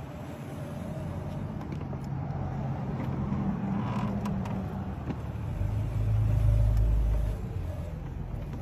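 Electric scooter rolling slowly over pavement: a low, steady hum with faint steady tones. A louder low rumble rises a little past the middle and lasts a couple of seconds.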